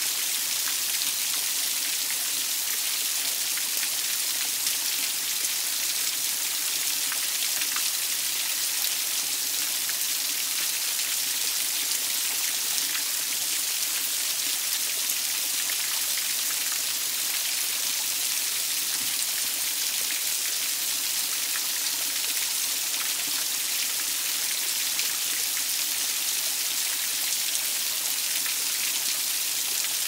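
Small forest waterfall pouring down a mossy boulder and splashing onto the rocks and pool below: a steady, even hiss of falling water.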